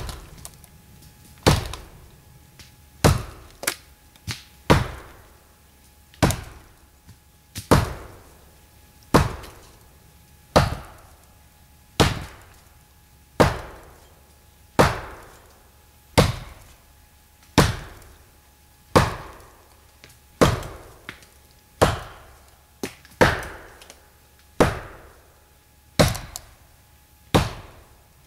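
Steel axe head (Condor Woodworker's axe) chopping a notch into a dead standing tree. Sharp, even strokes land about every one and a half seconds, each a hard thunk with a short decaying ring, and a few lighter hits fall in between.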